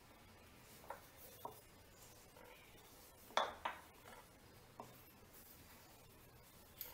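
A few faint, light knocks and clinks of kitchenware on a hard surface, about six in all, with the two loudest close together about halfway through.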